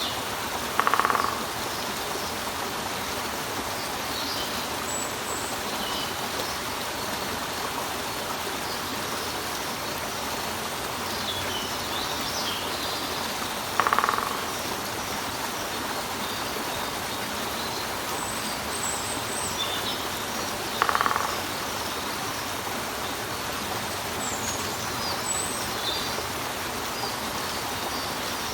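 Steady rush of water falling over a rock, with small birds chirping now and then. Three times, about a second in, at the halfway point and about two-thirds through, a woodpecker gives a short call, the loudest sound here.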